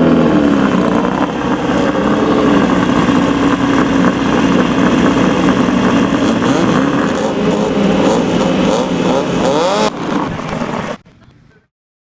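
Off-road race vehicle engines running and revving, with the pitch rising and falling several times over a loud rushing noise. The sound cuts off abruptly near the end.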